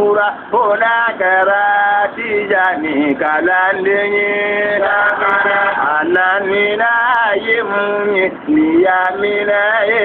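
A solo voice singing an Islamic devotional chant, holding long, high notes that waver and bend, with short breaks between phrases.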